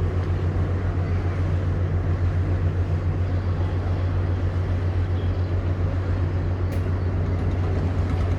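Tugboat's diesel engine running steadily: a deep, even drone with a fast throb.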